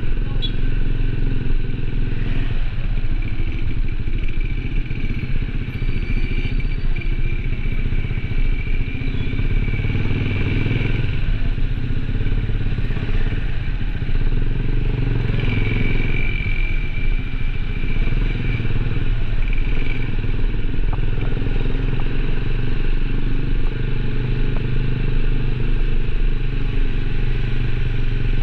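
Small engine running steadily at a constant speed, with some rattling over it.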